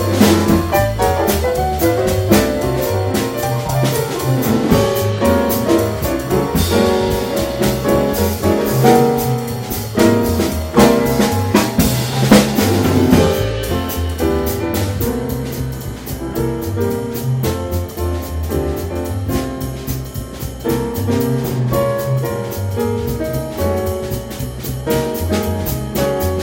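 Jazz trio of piano, drum kit and bass playing. Busy drum and cymbal strikes over the piano ease off about halfway through, leaving mainly piano and bass.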